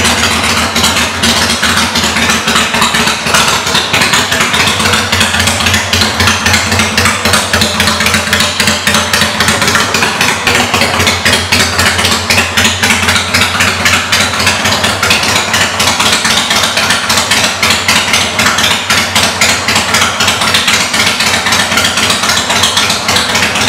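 2002 Kawasaki Vulcan 800's V-twin engine idling steadily through aftermarket Vance & Hines exhaust pipes, with an even, rapid pulsing.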